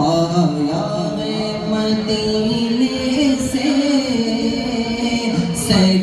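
Devotional manqabat singing: one voice holds long sung notes that slowly bend in pitch, with no clear words.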